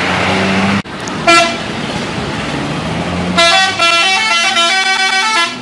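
Bus telolet horn, a multi-tone musical air horn, playing a short stepping tune for about two seconds near the end, after a brief single horn toot about a second in. Engine and road noise run underneath.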